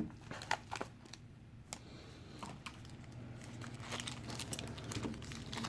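Mail packaging being handled and opened by hand: crinkling with scattered sharp crackles and taps.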